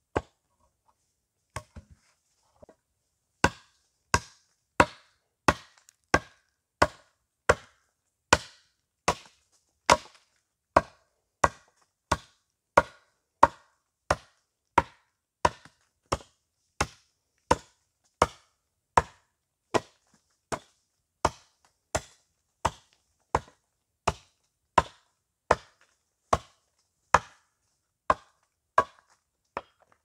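Hatchet chopping at the end of a wooden stake laid on a stump chopping block, cutting it to a point. A few light taps come first, then sharp wood-on-steel strikes land steadily, about three every two seconds.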